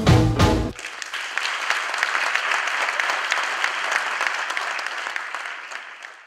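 Swing music stops under a second in and gives way to a theatre audience applauding, the clapping fading away near the end.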